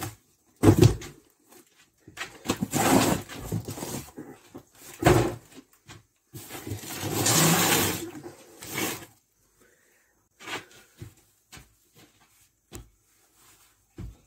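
Boxes and bags being moved about by hand: a thump just under a second in, long stretches of scraping and rustling, then a few scattered knocks.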